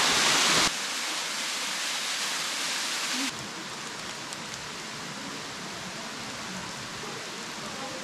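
Steady rush of Ayahiro Falls, a small mountain waterfall. The sound drops in level about a second in and again about three seconds in.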